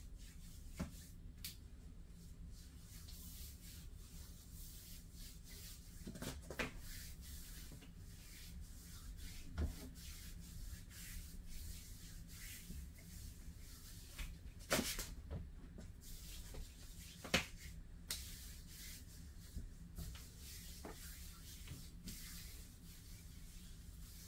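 Faint rubbing of hands over bare skin, with scattered light clicks and knocks, the sharpest twice near the two-thirds mark, over a steady low hum.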